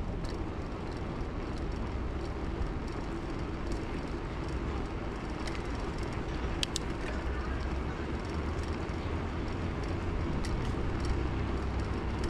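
Steady rush and rumble of riding a bicycle along a road, with the hum of passing traffic and scattered light clicks. A short high ping about seven seconds in.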